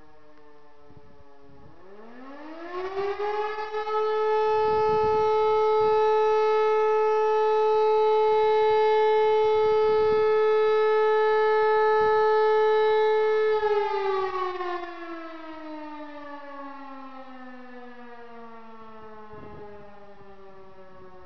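E57 electromechanical motor siren sounding one blast of the German "Feueralarm" (fire alarm) signal. The tail of the previous tone is still falling at the start; about two seconds in the rotor spins up in a rising wail to one steady tone, held for about ten seconds, then winds down in a long falling tone.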